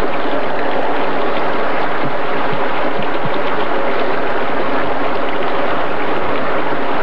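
Shallow river rushing over rocks: a steady, loud wash of running water.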